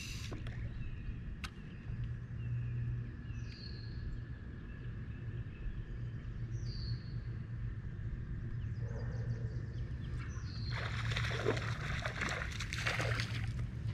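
Steady low hum with two short falling bird chirps, then about three seconds of water splashing near the end, as a hooked bass thrashes at the surface and comes off.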